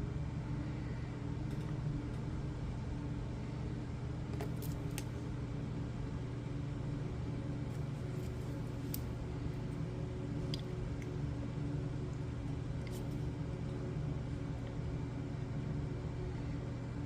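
Steady low background hum, with a few faint light clicks and taps from oracle cards being handled and drawn from the deck.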